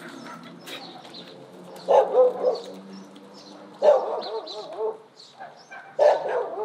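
A dog barking in three loud bouts about two seconds apart, each a quick run of barks.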